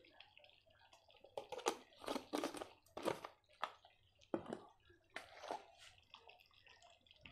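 Thick tomato gravy bubbling at the boil, with an irregular run of soft wet pops and crackles that comes thickest between about one and a half and three seconds in, then thins out.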